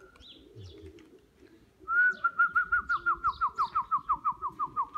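A person's loud trilled whistle, a pigeon fancier whistling to his birds, starting about two seconds in: rapid pulses about six a second, slowly sinking in pitch. Pigeons coo faintly underneath.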